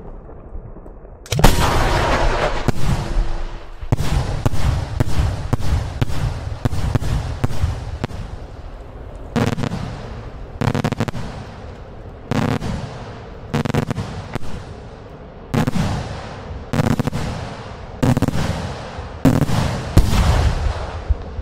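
Daytime fireworks bombs (aerial salutes) going off: one big bang about a second in, then a quick run of sharp reports several a second, then single loud bangs a little over a second apart, each trailing off.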